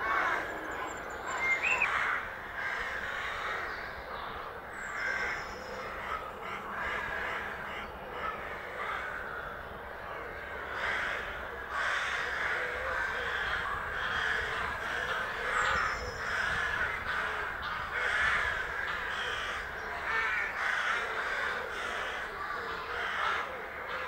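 Many birds calling at once in a steady, dense chorus, with a few thin high notes now and then.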